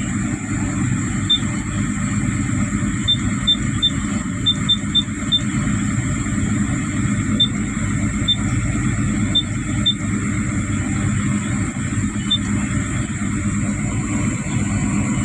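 Hyundai R220-9S excavator's diesel engine idling steadily, warming up before operation. A few faint short high pips sound now and then over it.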